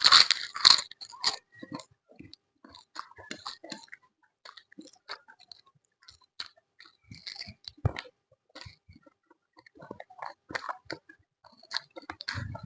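A person biting into crisp fried food and chewing it close to the microphone: a loud crunching burst on the first bite, then steady chewing with scattered smaller crunches and mouth clicks.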